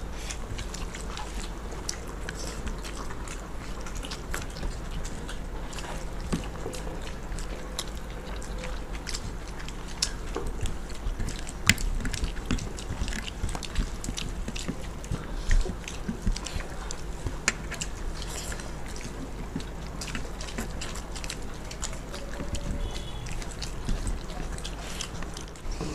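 Several people chewing and eating chicken biryani by hand close to a table microphone, with many short clicks and taps from fingers and plates scattered throughout and a steady low hum underneath.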